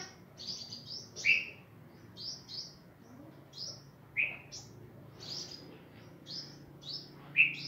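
Sunbird chirping: short high chirps in quick pairs and clusters, and three louder, lower notes that fall in pitch, about three seconds apart.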